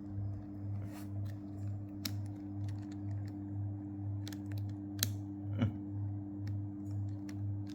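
Small plastic clicks and taps of 4x4 Rubik's cube pieces being handled and fitted during reassembly, scattered irregularly, the sharpest about five seconds in. Under them runs a steady low hum that swells about three times a second.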